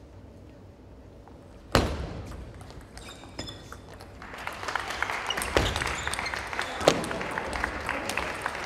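Table tennis rally: sharp single clicks of the ball on the paddles and table, the loudest about two seconds in. From about halfway, a haze of audience clapping rises beneath the hits.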